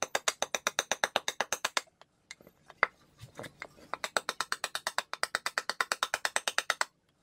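Large knife chopping at the edge of a wooden bowl blank: a fast run of sharp blade-on-wood strikes, about nine a second, breaking off about two seconds in for a few scattered knocks, then picking up again.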